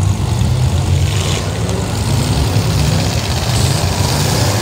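Several demolition derby cars' engines running loudly together in a continuous low rumble as the cars pull away and drive onto the track at the start of the heat.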